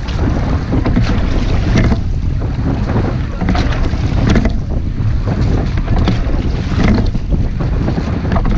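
Rowing shell under way: a steady rush of wind on the microphone, with the oars clunking and splashing in a recurring rhythm, stroke after stroke, every second or two.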